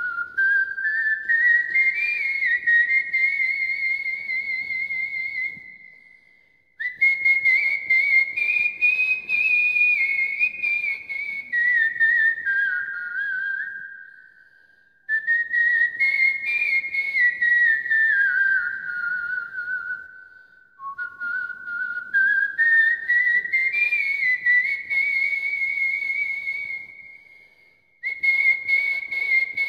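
A man whistling a Bengali song's melody through puckered lips, imitating a bamboo flute, with a fast wavering on the held notes. The tune comes in four phrases that climb and fall in pitch, broken by three short pauses.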